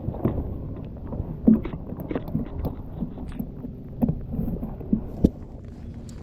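Irregular knocks and thumps of handling against a fishing kayak, over a low steady rumble; the sharpest thump comes about a second and a half in.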